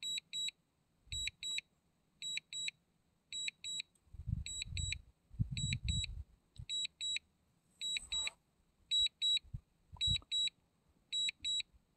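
DJI Mini 2 remote controller sounding its return-to-home alert: pairs of short high-pitched beeps, repeating about once a second, while the drone flies itself home after a low-battery warning. A low rumble comes and goes around the middle.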